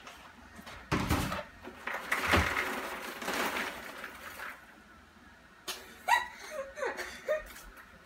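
Paper microwave popcorn bag rustling and crinkling as popped popcorn is shaken out of it into a bowl, loudest in the first half. Brief voice sounds near the end.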